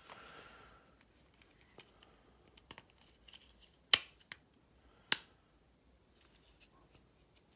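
Small plastic clicks and taps from a Lima 00 gauge locomotive bogie being handled as its motor housing is pressed onto the casing. There are two sharp clicks about a second apart around the middle.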